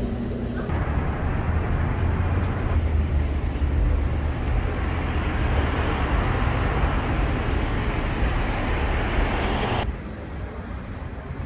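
Steady rumble and hiss of vehicle road noise. It starts sharply about a second in and drops away abruptly near the end.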